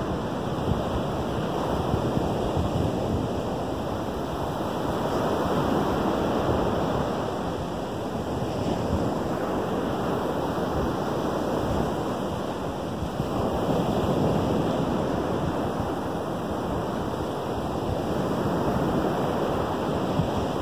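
Lake Michigan surf breaking on a sandy shore: a steady wash of small waves that swells and eases every few seconds, with wind rumbling on the microphone.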